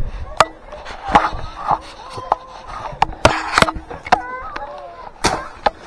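Hunting dogs giving a few short yelps among scattered sharp snaps and knocks.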